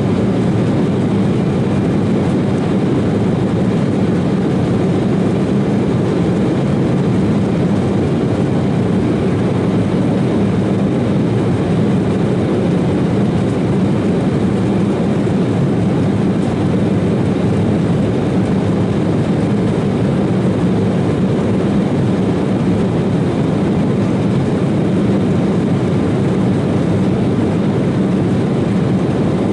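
Cabin noise of an Embraer 190 airliner in its climb after takeoff, heard from a seat over the wing: its CF34 turbofan engines and the rush of air over the fuselage, steady and unchanging, with a low hum.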